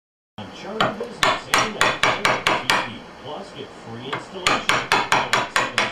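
Wood chisel being struck with a mallet, chopping out the waste between dovetails: a quick run of sharp knocks, a pause of about a second and a half, then another quick run.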